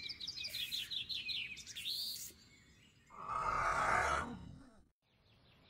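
A rapid run of short, high, falling chirps for about two seconds. About three seconds in comes a hissing burst of noise lasting about a second, which then fades out.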